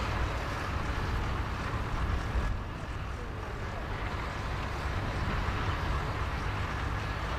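Valtra tractor's diesel engine running steadily under load as it pulls a five-furrow reversible plough through the soil, with a broad steady hiss over it.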